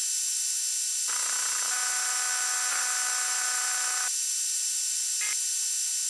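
Synthetic sci-fi scanning sound effect: a steady high hiss laced with thin held tones, joined by a denser buzzing layer from about one to four seconds in, and a brief blip about five seconds in.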